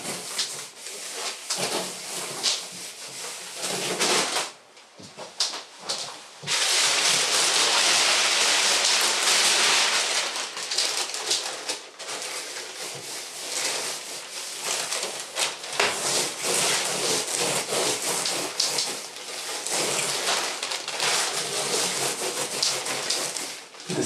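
Hands rubbing and pressing a large sheet of paper flat against an oil-painted canvas: a continuous rustling, scraping noise, quieter for a moment about five seconds in.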